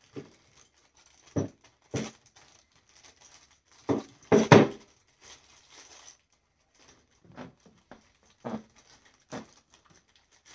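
Small plastic bags of hinge hardware being handled, crinkling in irregular short bursts, loudest about four seconds in.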